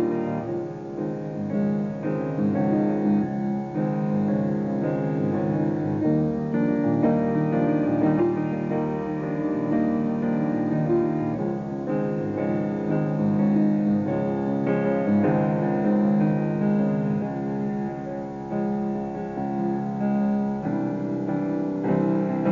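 Piano music with long held notes.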